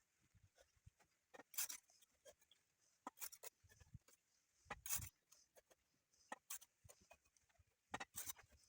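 Faint, scattered scrapes and knocks of bricklaying work, trowel and bricks, in about five short clusters with near silence between them.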